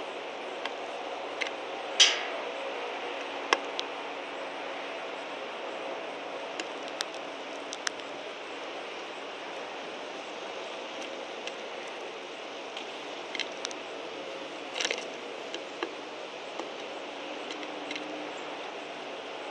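Scattered sharp taps and clicks from a male red-winged blackbird pecking at peanuts in the shell and seed on a wooden board, the loudest about two seconds in and a few more near fifteen seconds, over a steady background hum.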